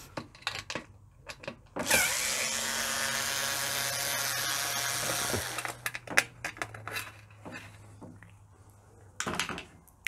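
Power screwdriver with a Torx T15 bit running steadily for about three and a half seconds, starting about two seconds in, as it backs out a screw from the dishwasher's lower front panel. Light clicks and knocks of the tool and screws come before and after.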